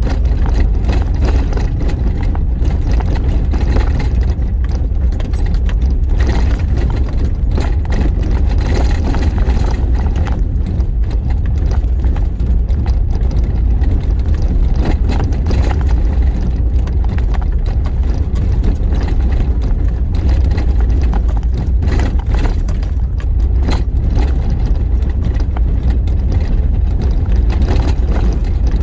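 Vehicle driving slowly over a rough, bumpy dirt road, heard from inside the cab: a steady low engine and road rumble with small irregular rattles and knocks from the bumps.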